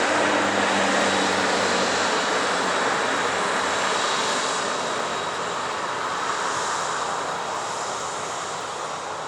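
Jet engines of an Airbus A330-343 airliner, Rolls-Royce Trent 700s, running with a steady rushing noise that slowly fades as the aircraft moves away. A low hum dies out in the first couple of seconds.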